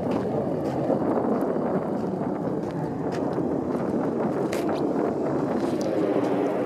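Steady noise of a car creeping through deep fresh snow, its engine and tyres running under wind buffeting the microphone, with a few faint crunches.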